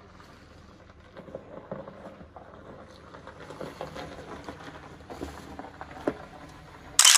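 Faint crackle of an SUV's tyres rolling slowly over icy, snow-dusted gravel, a little louder as it passes close, with a short loud burst of noise near the end.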